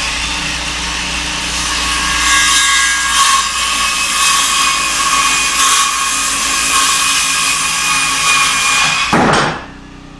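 Electric power saw cutting a short wooden board for a windowsill. The motor whines up to speed, runs steadily for about nine seconds, then cuts off.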